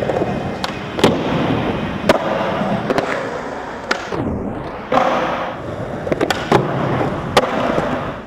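Skateboard wheels rolling on a smooth skatepark floor with a steady rumble, broken about every second by sharp clacks as the board pops and lands on and off the blocks.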